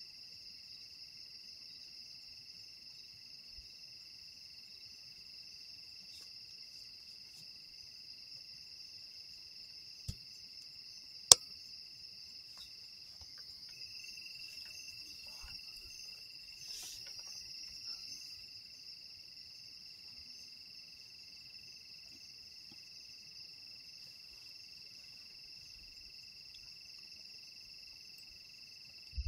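Steady chorus of night insects, a continuous high shrill in two even bands. A single sharp click about eleven seconds in stands out as the loudest sound.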